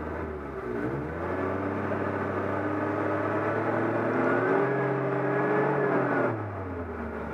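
Off-road 4x4's engine revving up on hard throttle about a second in, held high with the pitch wavering for several seconds, then dropping back near the end.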